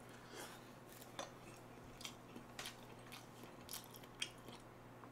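Faint chewing of a mouthful of instant noodles, with scattered soft, irregular mouth clicks and smacks.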